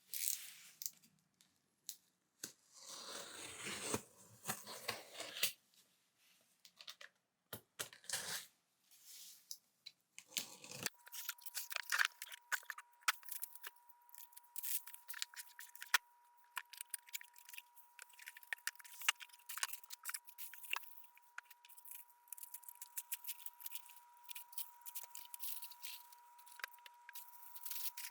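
Cardboard and plastic packaging of a drum machine being torn open and handled, with ripping and scraping. About eleven seconds in there is a thump, then a steady thin high tone and a run of small clicks and taps.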